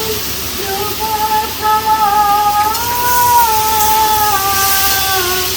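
Background music: a slow melody of long held notes that rises in pitch about three seconds in and falls again, over a steady hiss.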